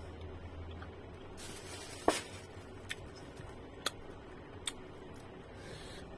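A few short sharp clicks and knocks, the loudest about two seconds in, from mangosteens being handled at a table, over a faint low hum.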